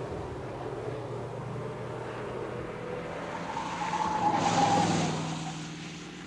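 Triumph Stag prototype car driving along a test track, its engine running steadily, then swelling into a louder pass-by about four seconds in with a higher whine that drops slightly in pitch, before fading away.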